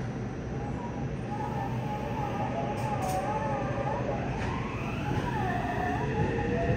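Mitsubishi IGBT-VVVF traction inverter of a Yokohama Blue Line 3000R subway car whining as the train pulls away, heard from inside the car. The whine first wavers in pitch, then rises steadily as the train picks up speed, over a steady low rumble from the running gear.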